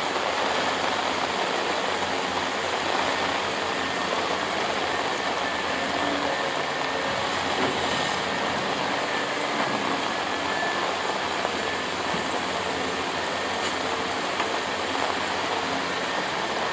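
Steady vehicle noise: an engine running with a constant broad hiss over it, unchanging throughout.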